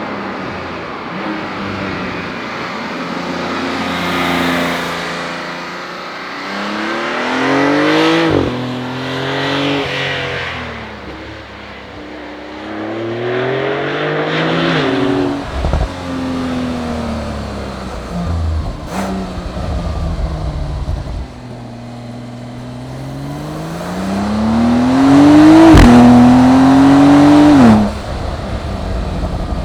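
Porsche 911 Turbo (992)'s 3.7-litre twin-turbo flat-six engine being driven hard, its pitch rising through the revs and dropping sharply at each upshift, then falling away as the car slows between pulls. The longest and loudest pull comes near the end and cuts off suddenly.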